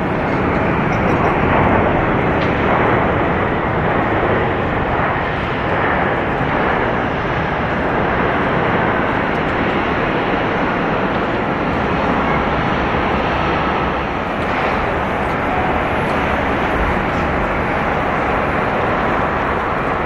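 Jet airliner engines running, a loud, steady rush of noise.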